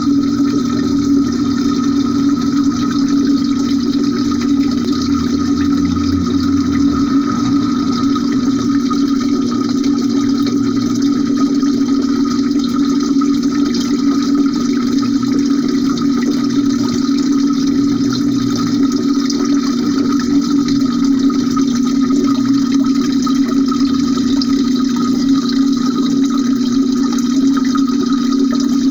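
Steady, muffled rush of the cement fountain's cascading water with a strong low hum, heard from a phone sealed in a glass jar under the water.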